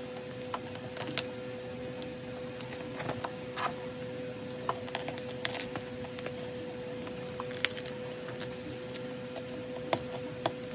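Photocards being handled and slid into the clear plastic pocket sleeves of a ring binder: scattered short crinkles, taps and clicks of card against plastic, over a steady low hum.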